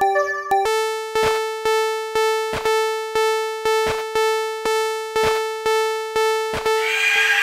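Electronic level-crossing warning bell ringing its repeated "kan kan" strike, about two a second. About half a second in it switches to a different, steadier bell tone. Near the end the ringing stops and a rushing noise takes over.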